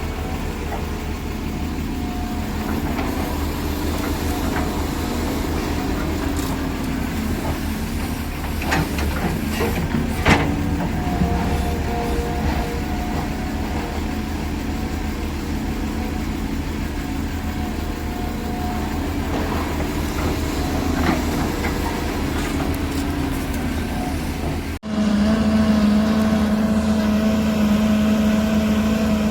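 Diesel engines of heavy earthmoving machinery running under varying load, their pitch rising and falling, with a few sharp knocks about ten seconds in. Near the end the sound cuts abruptly to a louder, steady engine drone.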